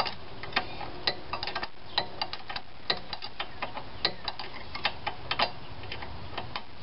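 Ratchet wrench clicking as an engine hold-down bolt on a mower deck is tightened. Sharp clicks come in short, irregular runs as the handle is swung back and forth.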